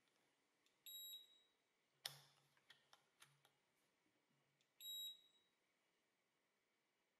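Beeper of an Agilent/Keysight U1273AX handheld multimeter sounding two short high beeps about four seconds apart as the meter powers up, with a few sharp clicks in between.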